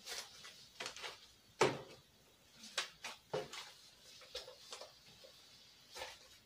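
Polymer Canadian banknotes crinkling and snapping as they are handled and counted by hand, in short irregular rustles, the loudest about a second and a half in.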